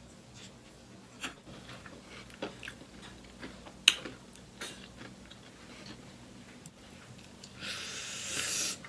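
Close-miked chewing and mouth sounds from eating fried chicken and fries: scattered soft clicks and crunches, one sharp click about four seconds in, and a hiss lasting about a second near the end.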